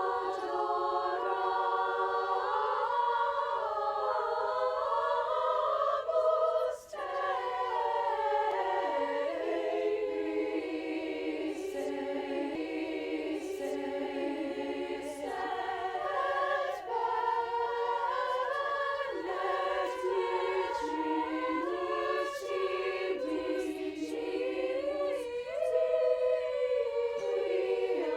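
High school choir singing in several parts, with a brief break about a quarter of the way in.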